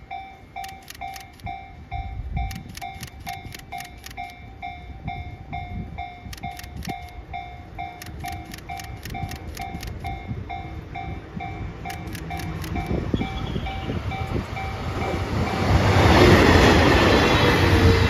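Japanese level-crossing alarm ringing steadily at about two rings a second while a JR West DD51 diesel-hydraulic locomotive hauling 14-series passenger coaches approaches. The train's noise grows from about two-thirds of the way in and becomes loud near the end as the locomotive and coaches pass over the crossing, covering the alarm.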